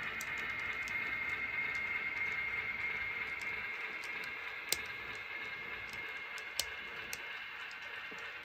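Model freight cars rolling along the track: a steady whir with a faint high whine, and the wheels ticking lightly over the rails, with two sharper clicks in the second half.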